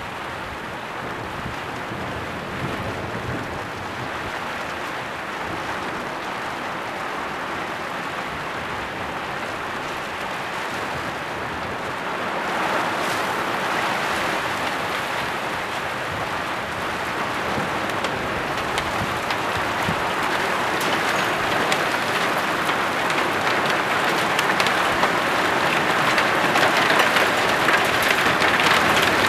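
Heavy thunderstorm rain pelting down on garden foliage and surfaces, a dense patter of many drops that builds steadily, stepping up about twelve seconds in and growing louder to the end.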